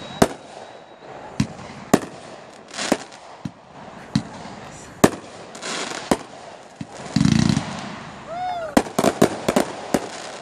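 Aerial fireworks going off: a string of sharp, irregular bangs from bursting shells with hissing crackle between them. A heavier, longer low boom comes a little past the middle, and a quick flurry of bangs follows near the end.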